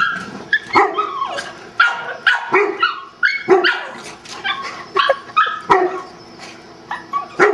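A dog barking and yipping over and over, short calls about every half second, at a retrieve toy floating out of reach in the pool.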